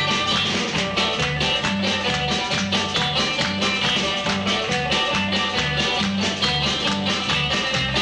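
Live band playing an up-tempo instrumental: harmonica over picked guitars and a steady, repeating bass line.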